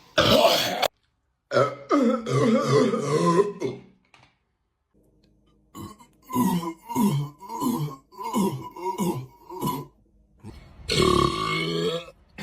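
Big burps from people who have gulped down carbonated Sprite: a long croaking belch, then a string of short belches about two a second, and another loud burp near the end.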